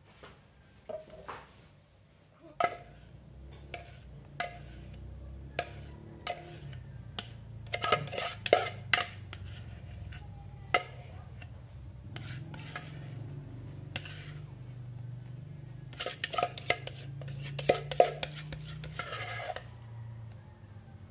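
Rubber spatula scraping cheesecake batter out of a mixing bowl into a glass cake dish, with repeated taps and knocks against the bowl's rim, in clusters about 8 s in and again near the end. A low steady hum runs underneath from a few seconds in.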